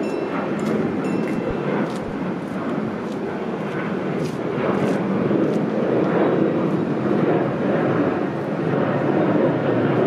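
Rumble of an approaching train at a closed level crossing, a steady noise that grows louder about halfway through.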